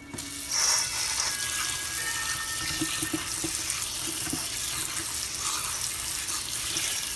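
Kitchen tap turned on and running steadily onto cut potatoes in a perforated stainless steel colander: a continuous rush and splash of water.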